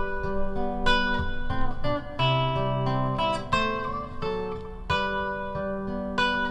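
Nylon-string silent guitar played fingerstyle: a bass note with single plucked notes and arpeggiated treble notes ringing over it, a new note or pair of notes about every half second.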